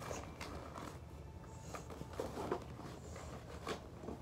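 Faint rustling and scattered light clicks of hands rummaging in the side pocket of a baseball equipment bag, over a low steady room hum.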